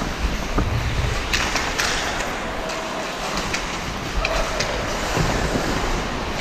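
Hockey skates scraping during play, with a few short sharp clacks of stick and puck over a steady low rumble.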